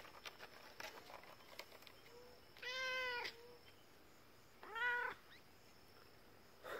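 A domestic cat meowing twice: a long meow about two and a half seconds in, then a shorter one around five seconds in.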